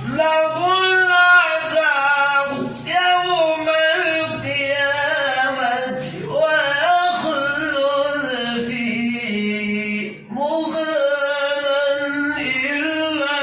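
A man reciting the Quran in a drawn-out melodic tajweed style, holding long ornamented notes that bend up and down, with a short break for breath about ten seconds in.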